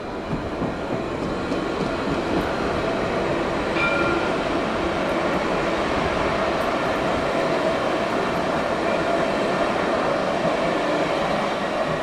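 Jerusalem Light Rail tram (Alstom Citadis) rolling past close by, with rail rumble and a steady electric motor whine. The sound swells early on and holds loud as the cars go by.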